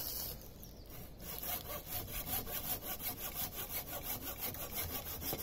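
Hand saw cutting through a green hazel pole in quick, regular back-and-forth strokes, the rhythm settling in about a second in.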